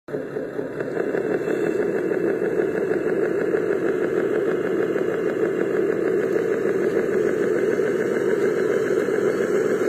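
Radio-controlled heavy truck running with a steady engine-like drone and fast even pulsing.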